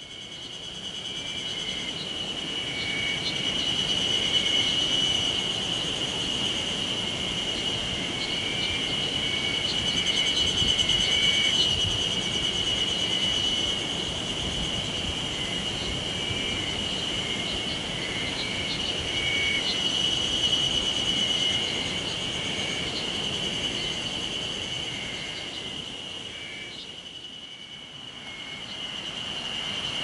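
Cicadas singing in chorus: a steady high-pitched drone that swells and fades, dipping briefly near the end, with fainter pulsing calls beneath it.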